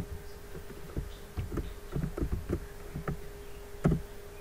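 Irregular clicks of a computer keyboard and mouse while text is being typed and edited, the loudest near four seconds in, over a steady low hum.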